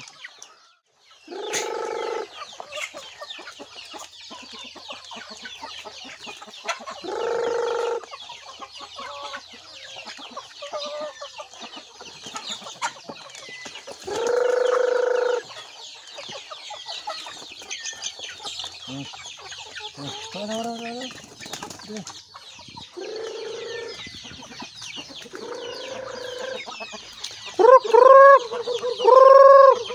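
Chickens clucking and calling, with about six loud, drawn-out calls of roughly a second each over constant high cheeping; the loudest two come near the end.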